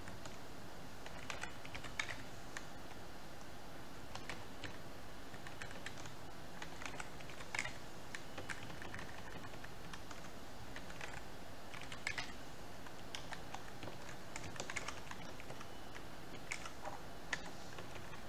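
Typing on a computer keyboard: irregular keystroke clicks in short runs with pauses between, over a steady background hiss.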